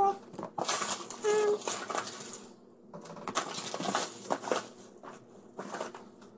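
Small hard objects being rummaged through and handled: a series of short, irregular clattering and rustling sounds.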